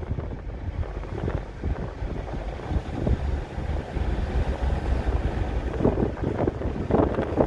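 Low, steady engine and road rumble of a Chevrolet car driving, heard from inside the cabin, with wind buffeting the microphone.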